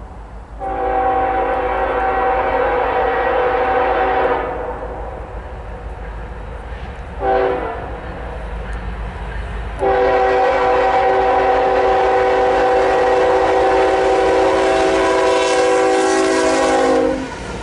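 Air horn of Norfolk Southern's Nickel Plate Road heritage locomotive NS 8100, a GE ES44AC, leading a freight train toward a grade crossing. It sounds a chord of several notes in a long blast, a short blast about three seconds later, then a long blast of about seven seconds: the end of the long-long-short-long crossing signal. The train's rolling noise comes up near the end as the locomotive passes.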